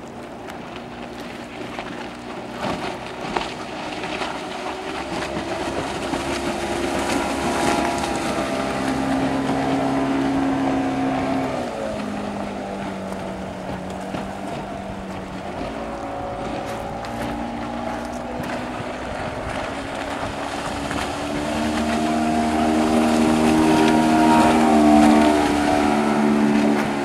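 Suzuki DT 140 two-stroke outboard pushing a speedboat at full speed past the listener. Its engine note swells as the boat approaches and drops in pitch as it passes, once about twelve seconds in and again, loudest, near the end.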